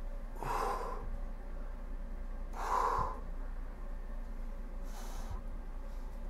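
A man breathing out heavily three times, about two seconds apart, the second the loudest, as he pushes his stomach out.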